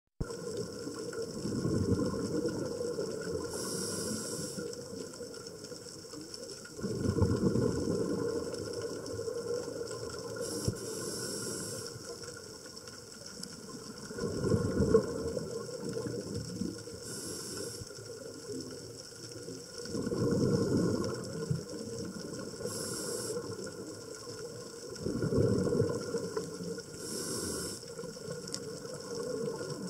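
Scuba diver breathing through a regulator underwater: a short hiss on each inhale, then a bubbling rush of exhaled air. The cycle repeats steadily about every five to six seconds, five breaths in all.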